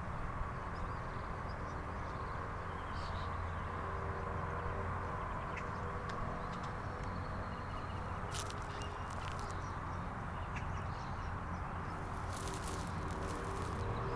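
1987 Honda CBR600F Hurricane's inline-four engine idling steadily, with a few sharp clicks near the end.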